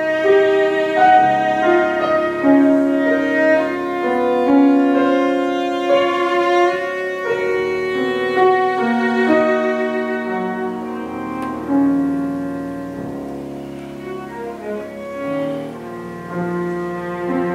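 Cello and piano playing a chamber piece: held, bowed cello notes over piano accompaniment, growing softer for a few seconds in the second half before rising again near the end.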